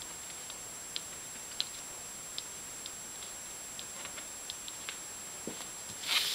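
Metal dip pen nib ticking and scratching on paper as short strokes are inked, in sparse, irregular light ticks, with a louder scratch near the end.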